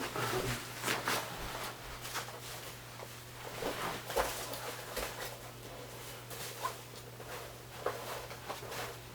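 Irregular soft taps and rustles of handling in a small room, over a steady low hum.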